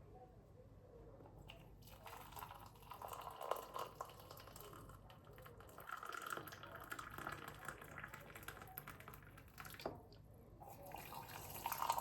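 Faint water dripping and trickling, with scattered small clicks.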